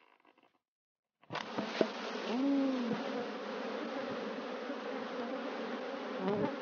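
A honeybee colony in a wooden log hive buzzing, starting suddenly just over a second in as the lid is taken off and the disturbed bees fly out. Bees passing close to the microphone add rising and falling whines over the steady hum.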